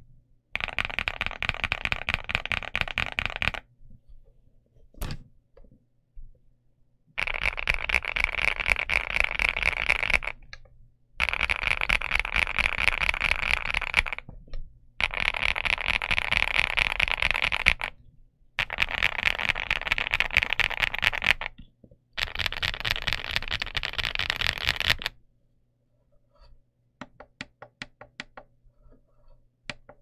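Fast typing on an Infiverse Infi75 mechanical keyboard with Qing Ji Designer switches and DS PBT keycaps: six runs of rapid keystrokes, each about three seconds long, with short pauses between them. Near the end it turns to slower, separate keystrokes.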